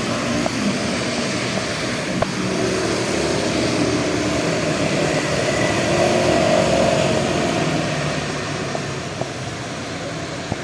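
Steady rain falling with scattered drip ticks, while an engine passes, growing louder toward the middle and fading away near the end.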